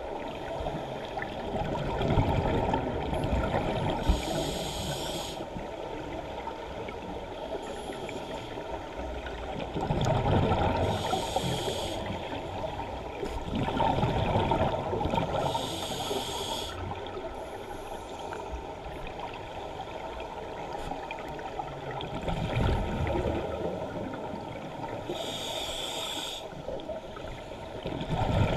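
Muffled underwater rush of moving water heard through a GoPro's waterproof housing, swelling and easing every few seconds, with several short patches of higher hiss.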